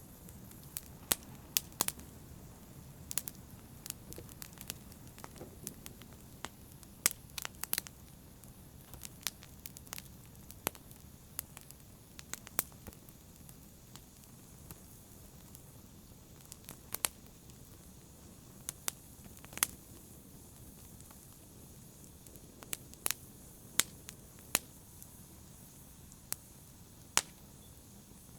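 Wood fire burning in a fireplace: irregular sharp crackles and pops, a few every second or two, over a steady low rumble of the flames.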